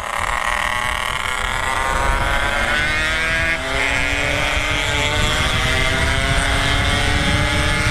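Motorcycle engine pulling hard at speed, its pitch rising steadily with a brief dip about three and a half seconds in, with wind rumbling on the microphone.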